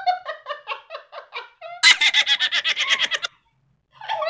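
Girls giggling in quick short pulses, then laughing louder and faster; the laughter cuts off suddenly a little past three seconds in.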